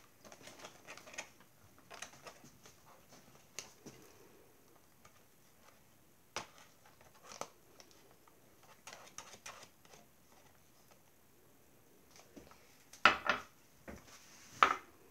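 Quiet handling sounds: a silicone spatula scraping honey from a glass bowl into a plastic zip-top bag, with scattered small taps and plastic rustles. Near the end come a few louder clacks as the glass bowl and spatula are set down on the granite counter.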